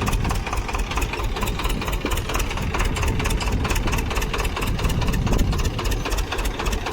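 Swaraj 724 tractor's two-cylinder diesel engine running steadily as the tractor drives in second gear, with a fast, even exhaust beat.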